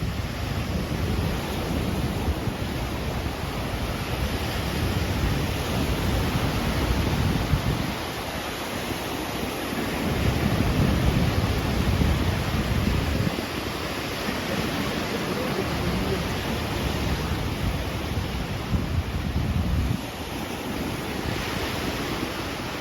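Surf washing onto a beach, with gusts of wind buffeting the microphone in low rumbling surges that come and go.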